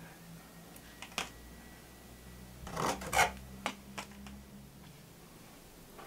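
Small metal spatula scraping and dabbing adhesive onto a corrugated fibre-cement roof tile: a few short scrapes and taps, with a cluster of them about halfway through.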